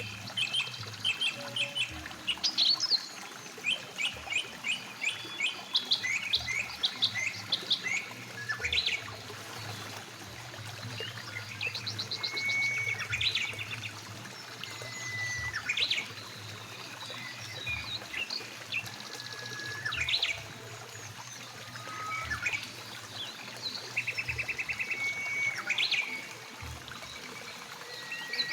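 Several songbirds chirping and calling: quick chirps, short rattling trills and a few clear whistles, busiest in the first ten seconds. Under them runs a faint steady rush of flowing river water.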